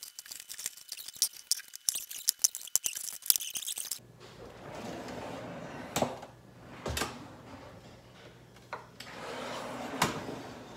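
Rapid clinking and rattling clicks as items are loaded onto a heavy pull-out pantry shelf, then the loaded shelf rolling out and back on its new heavy-duty ball-bearing slides, a smooth rumble twice with a sharp knock at the end of travel.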